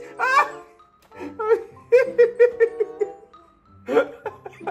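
A pained rising cry of 'ai', then hard laughter in a quick run of short 'ha-ha' pulses, about five or six a second, from about a second in, with another burst near the end.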